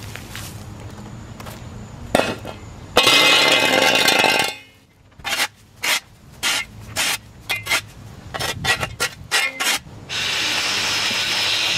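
A steel shovel scraping leaves and dirt off a concrete sidewalk, with one loud scrape about three seconds in, followed by a run of short clicks and knocks. About ten seconds in, a gas stick edger's small two-stroke engine starts and runs steadily.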